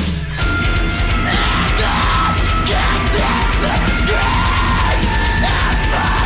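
Progressive metal song: a band plays drum kit and guitars at full volume, and a lead vocal line comes in about a second in.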